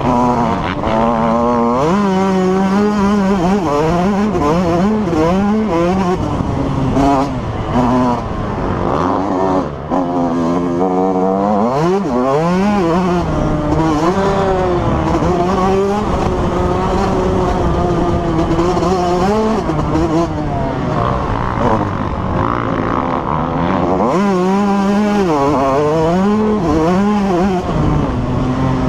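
Dirt bike engine, heard close from a camera mounted on the bike, revving hard and dropping back over and over as the rider accelerates, shifts and rolls off the throttle around the motocross track.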